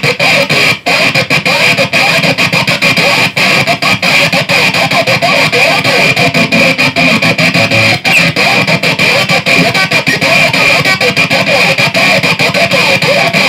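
Distorted electric guitar played fast, a dense run of quickly picked notes.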